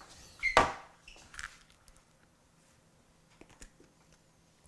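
A metal baking sheet is set down on a wooden counter with a sharp clatter about half a second in. A few lighter taps and clicks follow as a disposable aluminium foil muffin tin is set onto it.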